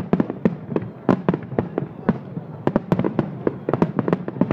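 Aerial shells of a Japanese fireworks display bursting one after another, about four sharp bangs a second in an irregular, overlapping barrage.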